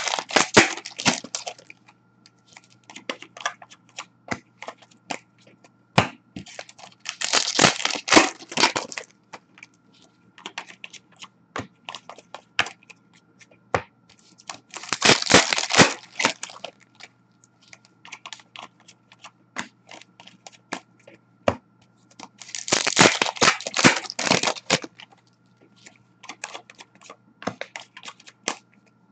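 Hockey card pack wrappers being torn open and crinkled in loud bursts about every seven or eight seconds, with short snaps and clicks of trading cards being handled and riffled between them.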